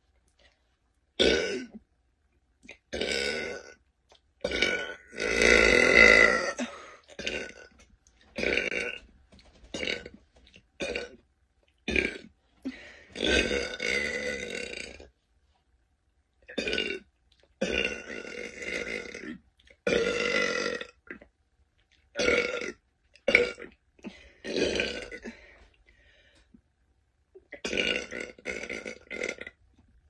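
A woman burping over and over, one burp every second or two, with the longest and loudest burp about five to seven seconds in.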